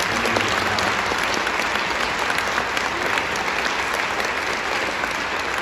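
Audience applauding, a steady, loud clapping from a large crowd.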